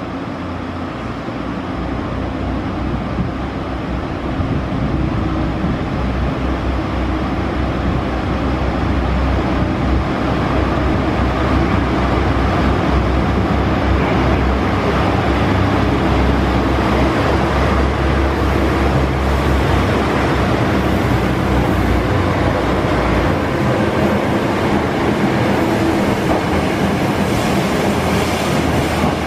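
Kyoto Tango Railway KTR8000 diesel railcar running along the station platform: the rumble of its diesel engines with wheels rolling on the rails. It grows louder over the first ten seconds as the train draws near, then holds steady.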